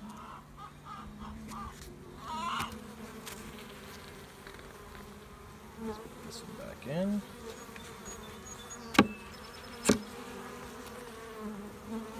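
Honeybees buzzing in a steady hum around an open hive. About nine seconds in, two sharp knocks about a second apart.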